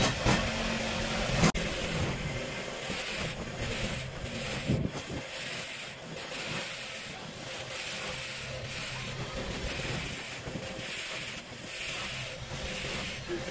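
Bench grinder's wire wheel brush spinning while a turbocharger turbine wheel and shaft is held against it to scrub it clean. The result is a scratchy hiss that starts and stops again and again, about once a second, over the motor's steady hum.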